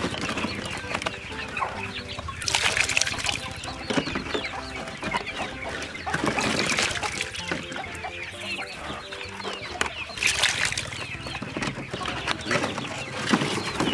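Chickens clucking, with a few short bursts of splashing as water and small fish are shaken out of plastic bottles into a metal basin.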